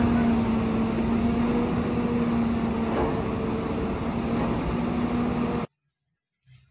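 Caterpillar wheel loader's diesel engine running under load with a steady hum as it tips a bucket of coal into a dump truck, the coal pouring out beneath. The sound cuts off suddenly near the end.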